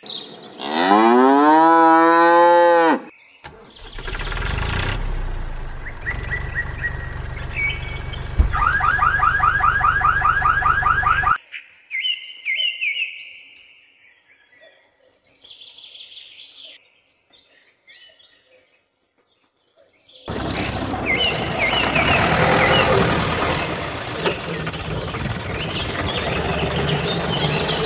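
A cow moos once near the start. Then comes a long stretch of loud, steady mechanical running noise that ends in a rapid repeating warble, a mostly quiet gap with a few faint sounds, and from about two-thirds of the way in more loud, busy noise.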